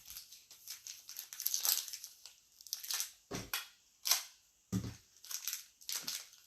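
Foil trading-card pack crinkling and being torn open in a series of short, irregular crackles and rips; the wrapper is hard to rip.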